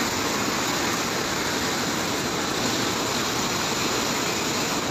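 Fast-flowing muddy floodwater rushing in a strong torrent, a steady unbroken noise.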